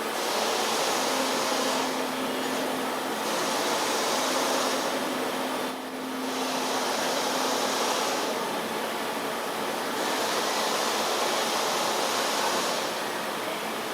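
SIMCO CNC-620RS spring forming machine running, feeding and forming magnet wire into springs, its hiss swelling and dropping in repeated cycles every few seconds. A steady hum joins in about a second in and stops a little past halfway.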